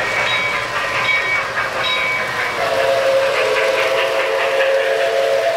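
O-gauge model steam locomotive's sound system blowing a chime steam whistle, a held chord starting about two and a half seconds in, over the clatter of the model train rolling past on the track.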